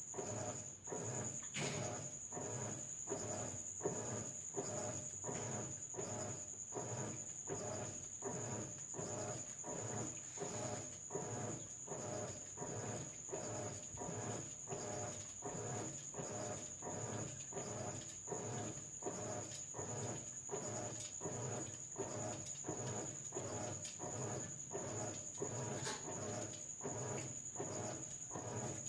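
GE King Capacity 15.1 kg top-load washing machine agitating a load in its rinse, the agitator swishing water and clothes back and forth in an even rhythm of about three strokes every two seconds, with a steady high whine underneath.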